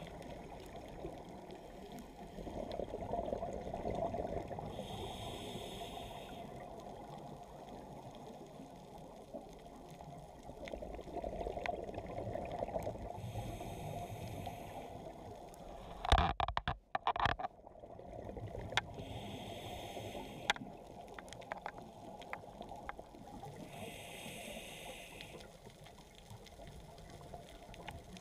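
Underwater sound from a diver's scuba regulator: a short hiss on each inhale, about every five to six seconds, and the low bubbling rumble of exhaled bubbles between them. There is a loud knock about sixteen seconds in.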